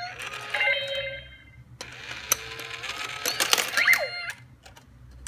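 Itazura coin bank toys at work: a short electronic tune and voice, then a mechanical whirr with sharp clicks and coins clinking as a lid mechanism takes a coin in, with a few quick chirpy electronic voice sounds near the end.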